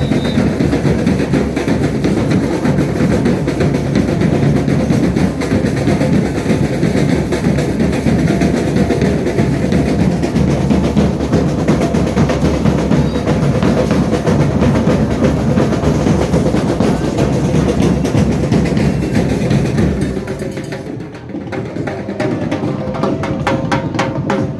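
Carnival comparsa drum section playing a dense, loud beat on snare and bass drums. About twenty seconds in, the drumming drops away and a lighter beat of sharp, evenly spaced clicks carries on.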